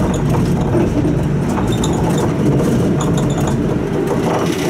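City bus heard from inside while under way: its engine running with a steady low rumble, mixed with small rattles and clicks from the bus body.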